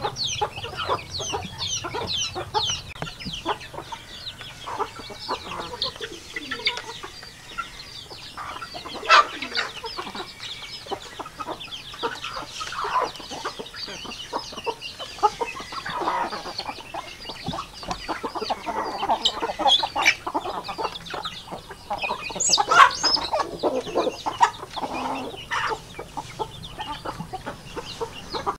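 A flock of chickens clucking and calling while feeding, many short high-pitched cheeps mixed with lower clucks.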